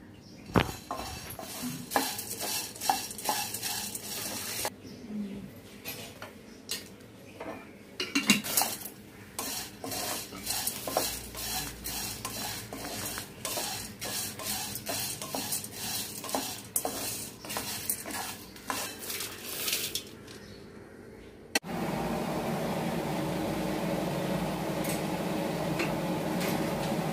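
A spatula scraping and clicking against a non-stick frying pan as whole spices (triphala, kabab chini/cubeb and mace) are stirred while dry-roasting in a little oil, with a light sizzle. In the last five seconds a steady rushing noise replaces the stirring.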